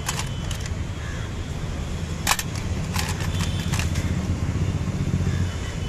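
Steady low rumble of road traffic, with a few short sharp clicks, the loudest about two seconds in.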